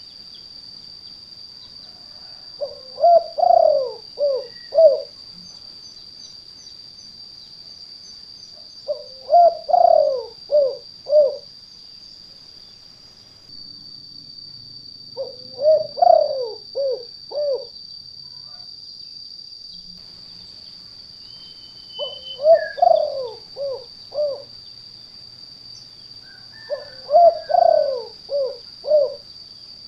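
Spotted dove (tekukur) cooing in the 'kuk 2' call pattern used as a lure, five phrases about six seconds apart, each a longer opening coo followed by a few short notes. A steady high-pitched whine runs underneath.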